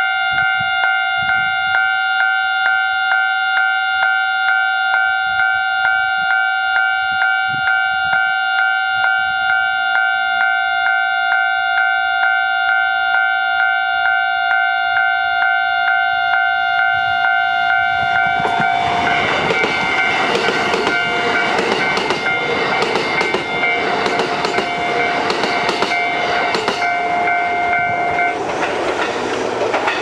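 Japanese level-crossing alarm ringing a rapid, steady repeated ding. About two-thirds of the way in, a Kintetsu 23000 series Ise-Shima Liner electric express train passes with wheel clatter and rushing noise, and the alarm stops near the end while the train is still going by.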